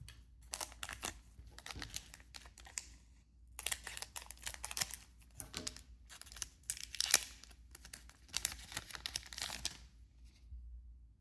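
Foil booster pack wrapper being torn open and crinkled by hand, in two spells of irregular crackling rustle with a short pause between them and one sharper snap in the second spell.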